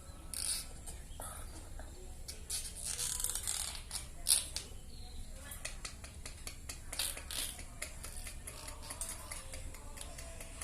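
Young lovebird chattering in short, scratchy, raspy bursts mixed with clicks; the hoarse, off-key tone is typical of a juvenile bird whose song has not yet matured.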